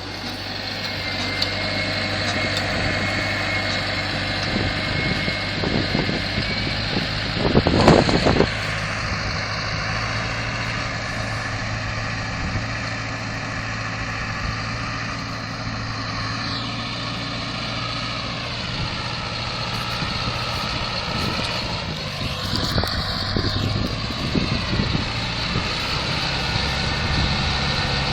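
Claas Arion tractor running steadily with a Grimme SE 75-30 potato harvester working behind it. A brief loud burst of noise comes about eight seconds in, and a whine slides down and back up in pitch later on.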